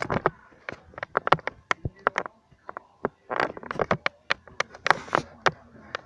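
Handling noise: irregular clicks, taps and short rustles as the camera is moved about and fumbled with.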